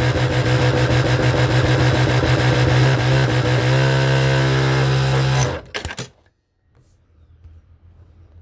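Electric sewing machine running fast and steady, its needle stitching in a rapid even rhythm, then stopping suddenly about five and a half seconds in with a few clicks.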